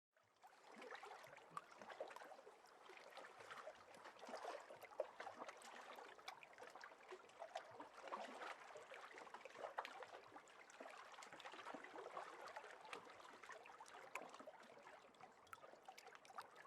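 Faint moving water, a steady crackling trickle with many small splashes.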